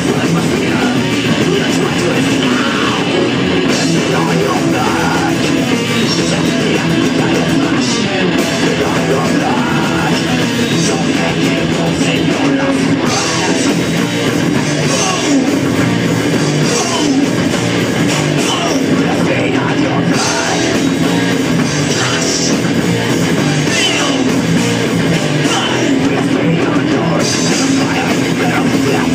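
Thrash metal band playing live and loud: electric guitar, electric bass and drum kit in a steady, dense wall of sound.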